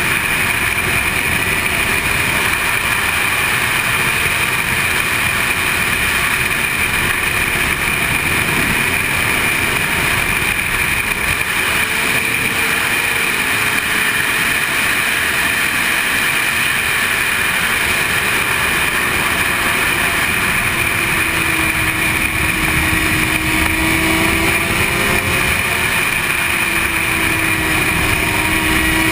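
Sport motorcycle at track speed: steady wind rushing over the microphone, with the engine's note faintly rising and falling underneath as the rider works the throttle.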